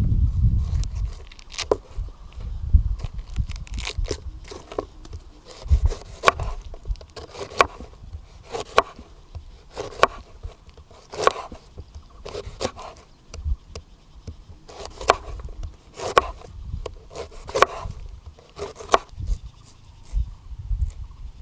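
A series of sharp knocks, about one a second, with a pause a little past the middle, over a low rumble.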